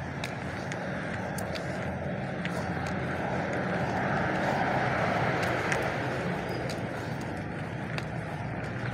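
A motor vehicle's engine running steadily somewhere along the lane, growing louder in the middle and easing off again, with light footsteps on a dirt path.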